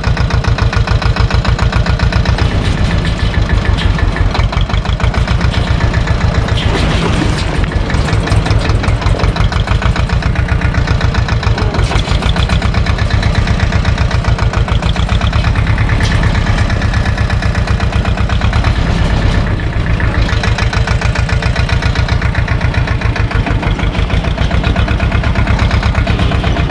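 SAME tractor's diesel engine running steadily, heard from the driver's seat, with an even, rapid low firing pulse.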